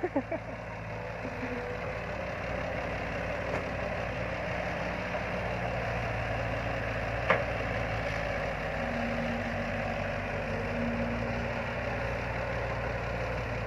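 Caterpillar 312B hydraulic excavator's diesel engine running steadily as the machine moves on its tracks, with one sharp clank about seven seconds in.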